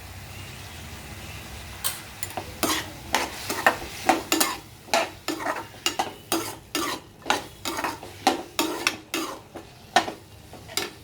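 A spoon stirring and scraping chopped vegetables and spices frying in oil in a pan, in irregular strokes about twice a second, over a soft sizzle. The stirring starts about two seconds in; before that only the sizzle is heard.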